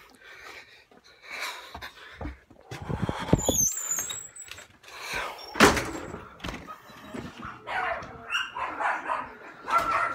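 A dog barking in the house, mixed with knocks and thumps as a door is opened and the phone is handled; the loudest thump comes a little past halfway.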